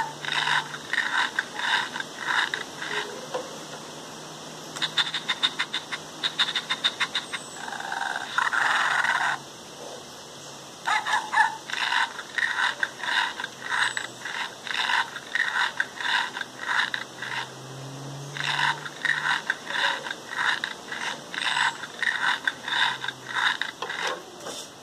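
A LEGO Mindstorms EV3 brick's small built-in speaker playing the puppy robot's sound effects, tinny and in runs of short repeated bursts: a fast flutter about five seconds in, a longer burst just after, then steady series of bursts through the rest.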